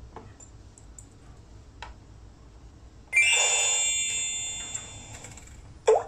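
Security alarm hub sounding an electronic chime of several steady high tones that starts suddenly about halfway through and fades over about two seconds, the hub's confirmation that an RFID key tag held to its reader has been read and paired. A short click comes near the end.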